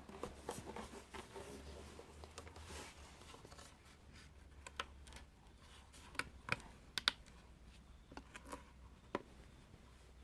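Faint, irregular clicks and scrapes of a speaker cabinet and its screws being handled while it is taken apart, with a few sharper ticks.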